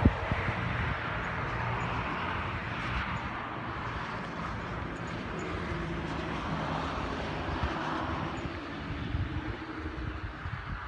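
A steady engine drone, with a low hum that holds on throughout and a higher tone joining about halfway through.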